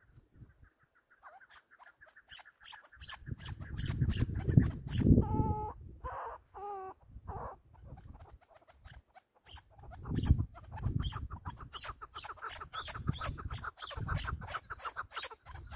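Chukar partridges calling in long rapid series of clucks, with a few drawn-out pitched notes about five to seven seconds in. Gusts of low wind rumble on the microphone come and go, loudest about four to five seconds in.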